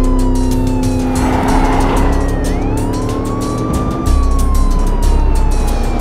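Police siren wailing in a slow rise and fall, about once every four to five seconds, over a car's low rumble and background music with a steady beat.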